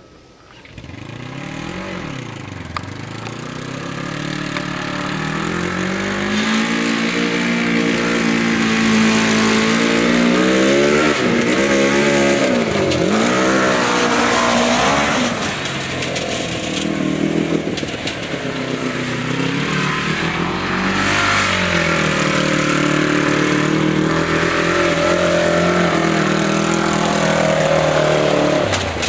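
Homemade buggy's 1992 Honda CBR600 inline-four motorcycle engine running hard, revving up and dropping back again and again, and growing louder over the first few seconds. It is loud, through motorcycle mufflers with an exhaust leak at the header pipe where a bolt is missing.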